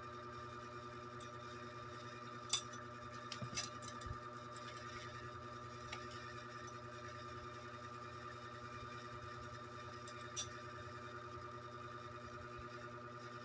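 A steady hum with a high whine under it, broken by a few short, sharp crackles of adhesive tape and plastic tubing being handled: the loudest about two and a half seconds in, a few more just after, and one more about ten seconds in.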